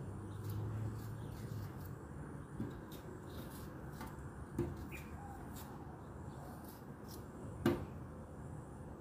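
Small kitchen knife paring the skin off a piece of fresh ginger held in the hand: faint scraping with a few soft clicks, the sharpest about three-quarters of the way through.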